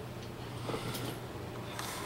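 Quiet room tone: a steady low hum under faint hiss, with a couple of faint light clicks.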